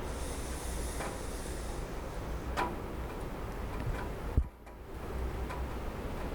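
Rain falling on a roof: a steady hiss with irregular drops ticking and tapping. One louder thump comes about four seconds in, after which the sound briefly drops away before the rain returns.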